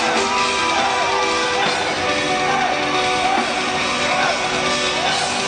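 Live symphonic death-metal music heard over a concert PA from the audience: sustained held chords with short wavering notes moving over them.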